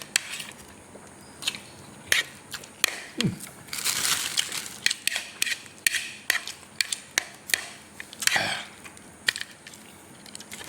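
Close-up mouth sounds of a person eating noodles: wet smacks and clicks of chewing, with two longer slurps about four seconds in and near eight and a half seconds.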